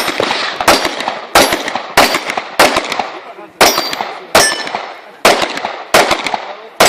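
Handgun shots fired in a rapid string, about ten of them, roughly one every 0.6 to 1 second with a short gap near the middle, each followed by a fading echo.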